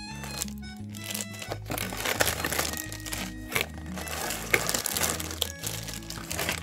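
Plastic packaging bags crinkling and rustling as they are handled and lifted out of a cardboard toy box, with many quick crackles, over background music.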